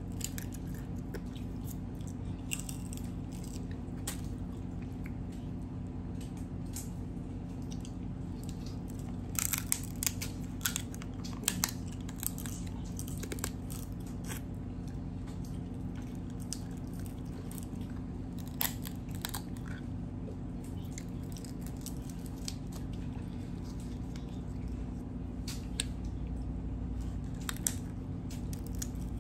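Close-up eating of boiled crab legs: chewing, with sharp cracks and crunches of shell, thickest around ten seconds in and again near nineteen seconds, over a steady low hum.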